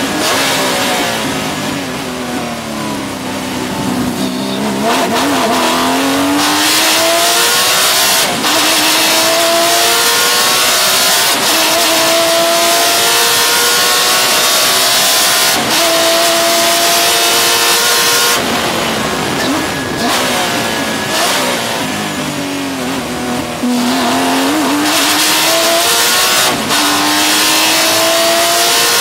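2001 Porsche 996 GT3 Cup's 3.6-litre flat-six at racing speed. It slows with falling pitch through downshifts, accelerates hard with rising pitch through a string of upshifts, slows again past the middle, then pulls hard once more near the end.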